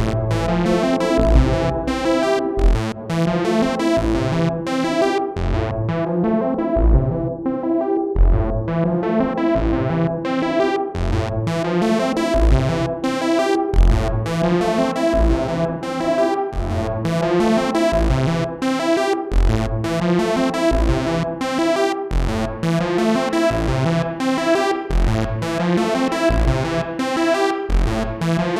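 Synthesizer sequence played through a Donner Vintaverb stereo reverb pedal on its Room algorithm: a repeating pattern of notes over evenly pulsing bass. The top end dulls for a few seconds about six seconds in.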